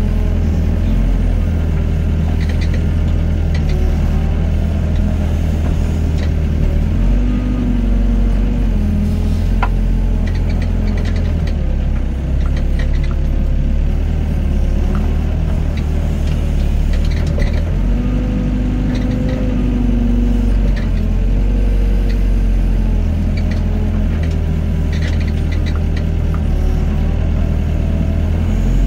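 Doosan excavator's diesel engine running steadily while digging and loading sand, its note shifting twice as the load changes, with scattered light clanks.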